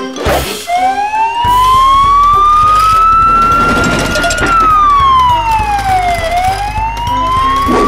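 Siren wailing: one tone rising slowly for about four seconds, falling for about two, then rising again, over a low pulsing background beat.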